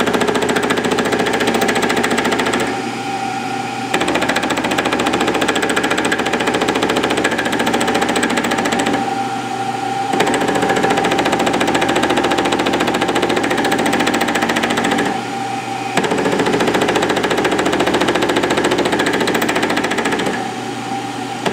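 Milling machine running, its offset boring head spinning and cutting a cam profile in a steel drill-rod blank in repeated passes. The sound is steady and loud, with a brief dip in level about every six seconds.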